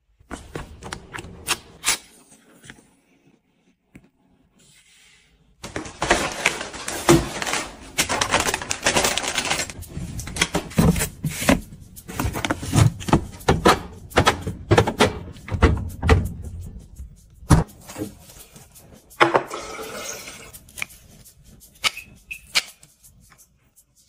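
Household handling sounds: a run of sharp clicks, taps and knocks, with dense clattering noise from about six to ten seconds in and again briefly around nineteen seconds.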